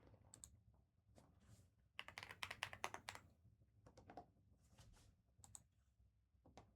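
Typing on a computer keyboard: faint scattered key clicks, with a quick run of rapid keystrokes about two seconds in.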